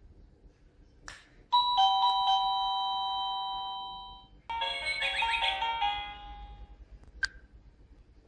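SadoTech CRX wireless doorbell receiver chiming. A click is followed by a two-note ding-dong that rings out and fades, then a quicker multi-note melody. A sharp click comes near the end.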